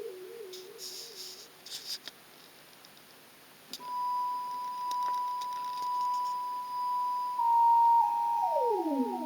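Electronic synthesizer tones: a warbling tone that fades out, with a few scattered clicks, then a steady high pure tone that steps down slightly twice, and near the end several tones sweeping up and down across one another.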